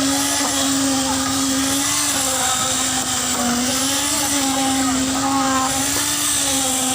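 Construction machine's motor running steadily, a loud hum that wavers slightly in pitch over a hiss.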